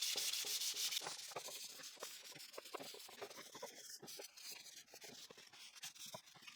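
Wood being sanded by hand with 220-grit sandpaper: quick back-and-forth rubbing strokes, louder in the first second, then fainter.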